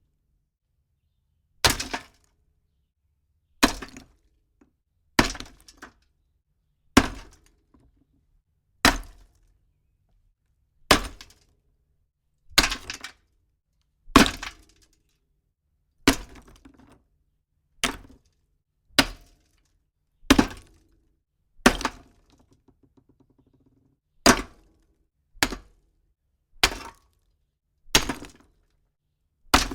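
Rocks struck against other rocks: a series of about eighteen separate sharp, deep impacts, one every one and a half to two seconds, each with a brief rattling tail. A faint patter of small debris sounds between two of the hits about two thirds of the way through.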